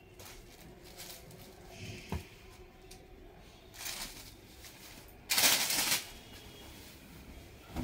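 Silk saree being unfolded and spread out by hand over a cloth sheet: soft rustling of the fabric with a few small clicks, and one loud swish a little past five seconds in as the saree is flung open, then a short soft thump near the end.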